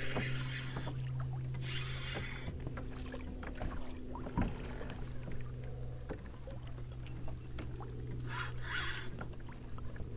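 Spinning reel being cranked from a kayak while fighting a hooked fish, over a steady low hum. Two brief hissing bursts come about two seconds in and again near the end.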